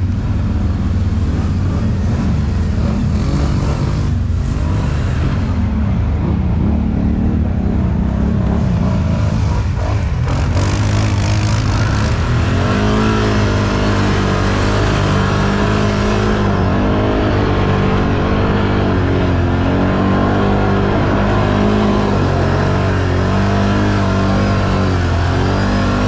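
Can-Am off-road vehicle engine running hard while driving through a mudhole. In the second half it revs up and down repeatedly.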